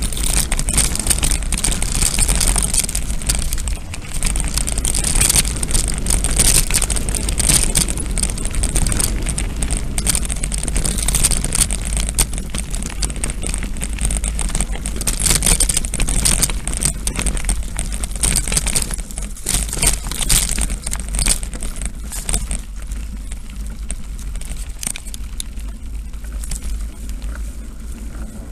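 A mountain bike riding down a bumpy dirt track, heard from a camera moving with it. Wind rumbles on the microphone under a constant rattling and clicking over the rough ground, easing somewhat near the end.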